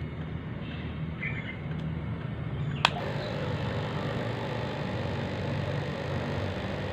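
Electric water pump running with a steady hum. About three seconds in there is a sharp click, after which a higher hum joins and it runs a little louder.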